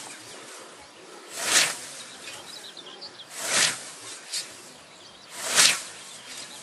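Scythe blade sweeping through tall grass: three long swishes about two seconds apart, each building up and ending sharply as the stroke cuts through.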